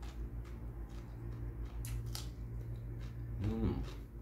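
Biting into and chewing a raw cucumber slice, with two sharp crunches about two seconds in. A brief vocal sound near the end, over a steady low hum.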